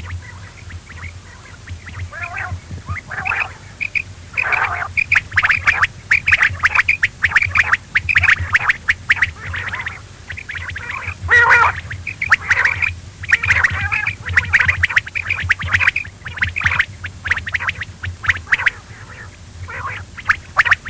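Quail calling in quick, repeated chattering notes with short pauses, over a steady low hum.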